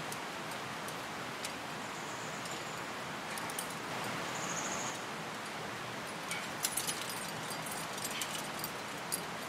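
Steady outdoor background hiss with scattered light metallic clicks and jingles of climbing gear, bunched in the last few seconds. A short, high-pitched pulsed trill sounds twice near the middle.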